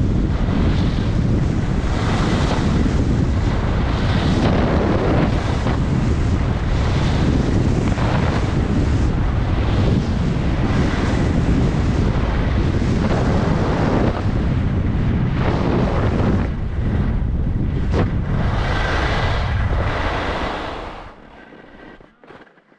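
Wind rushing over an action camera's microphone during a fast descent down a snowy run. It surges every second or two, then falls away sharply near the end.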